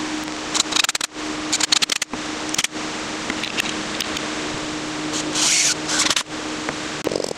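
Workshop handling sounds while a wooden rocking chair is worked on: scattered sharp clicks and knocks from wood and tools, and a short hissing burst about five seconds in, over a steady background hiss.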